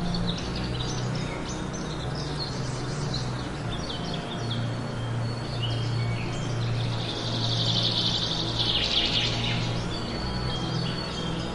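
Many birds chirping in quick, short high calls, with a dense run of rapid calls about seven seconds in. Under them runs a low, steady background-music drone.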